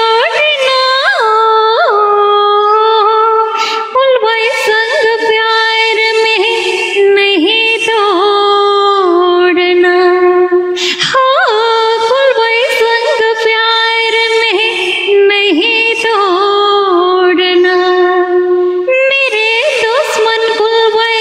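A woman singing unaccompanied into a close microphone: long phrases of held, wavering notes with ornamental turns, broken by short breaths about 4, 11 and 19 seconds in.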